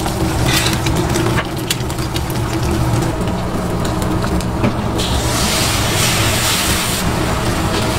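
Eggs and oil frying on a hot flat-top steel griddle. A loud sizzle bursts up about five seconds in as beaten egg is poured onto the oiled surface, over a steady low mechanical hum and light clicks of utensils on the steel.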